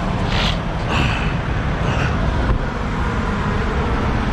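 Semi-truck diesel engines idling with a steady low rumble. Several short clatters and knocks come over it in the first two and a half seconds as the cab door is opened and someone climbs down from the cab.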